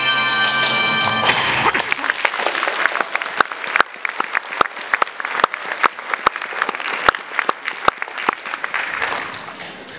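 The closing chord of a stage musical number's accompaniment cuts off about a second in, then the audience applauds, the clapping thinning out and dying away near the end.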